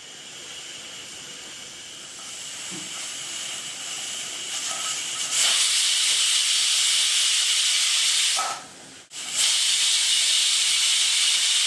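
Stovetop pressure cooker whistling as its weighted steam vent blows off: a faint hiss builds, then two loud whistles of steam about three seconds each with a short break between. Two whistles mark the rice as cooked.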